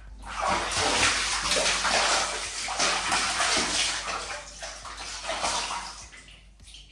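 Water splashing and sloshing in a plastic basin as a young monkey thrashes and rolls about in it, loudest over the first few seconds and dying down near the end.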